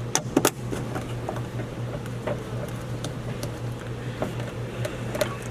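Two sharp plastic clicks just after the start, then a few fainter clicks and taps, over a steady low hum: hands snapping the antenna lead back into the speed controller's signal connector.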